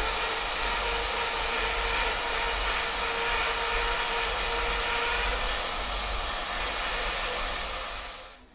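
A steady rushing hiss with a low hum underneath, dying away quickly near the end.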